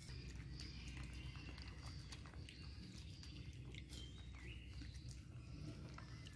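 Faint short, high squeaks and scattered soft clicks from young animals, over a low steady hum.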